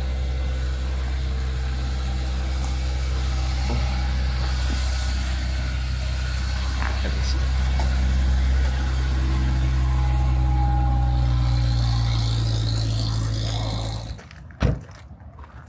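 A car engine idling steadily, then switched off about fourteen seconds in, followed by a single thump.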